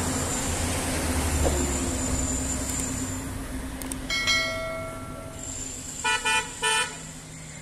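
Road traffic running steadily, with car horns: a pitched ringing tone about four seconds in that fades over about a second, then three short honks in quick succession near the end.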